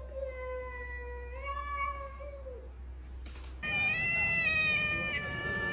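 A cat yowling in long, drawn-out meows: one wavering call for the first couple of seconds, then a louder, higher-pitched one starting a little past halfway.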